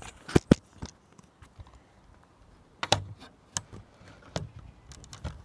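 Irregular sharp clicks and knocks: two loud ones in quick succession about half a second in, then a few scattered, fainter ones. This is handling noise from a phone being held and moved close to its microphone.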